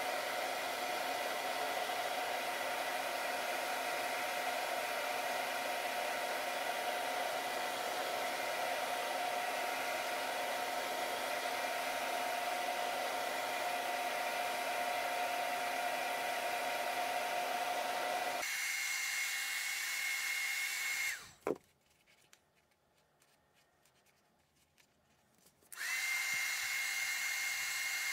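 Hand-held hair dryer blowing steadily with a constant whine. About two-thirds of the way in its pitch shifts higher. Soon after, it cuts off with a click for several seconds, then comes back on.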